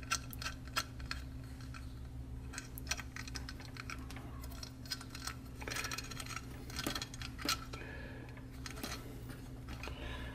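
Light metallic clicks and taps of brass air fittings and a hose clamp being handled and fitted onto an air regulator, scattered irregularly, over a steady low hum.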